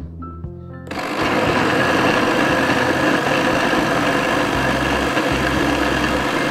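Electric countertop blender starting about a second in and running steadily at speed, pureeing sweet-corn kernels with water.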